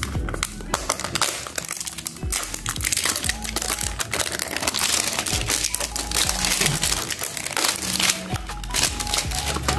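Clear cellophane wrap on a perfume box crinkling and crackling as it is peeled off by hand, over background music with a steady bass line.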